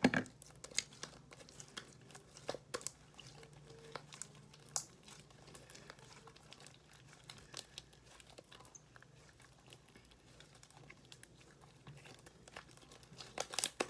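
Homemade glue slime being kneaded and pulled by hand to get the sticky residue off: irregular soft clicks, crackles and sticky pops throughout, over a faint steady low hum.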